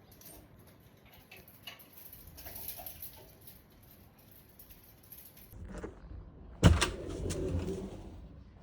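A door sliding open with a sharp knock as it hits its stop, about two-thirds of the way in, after a few seconds of faint rustling and light clicks.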